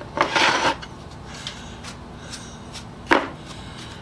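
A paintbrush sweeping sanding dust off a glass sanding plate: one short brushing stroke near the start, then a single sharp knock about three seconds in.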